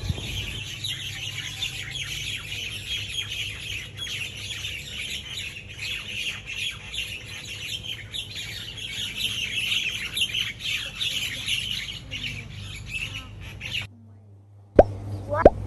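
A flock of birds chirping and squawking at once in a dense, continuous chatter that cuts off suddenly about fourteen seconds in. Near the end a quick run of short plopping pops begins.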